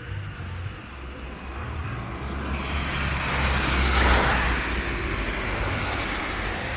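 A road vehicle drives past, its engine rumble and tyre noise swelling to a peak about four seconds in and then easing off.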